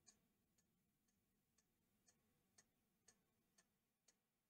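Near silence, with faint, even ticking about twice a second.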